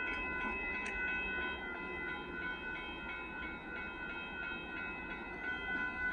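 Amtrak Texas Eagle passenger train rolling past with a low rumble, and a steady high-pitched ringing tone over it.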